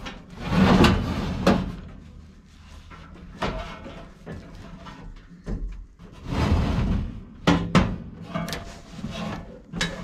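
Sheet-metal furnace blower housing scraping and knocking against the cabinet as it is slid back into place by hand, with irregular scrapes and several sharp metallic knocks.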